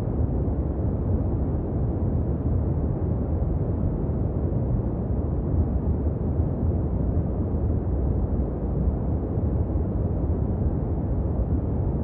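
Steady, deep, even rushing noise, strongest in the low end with little treble.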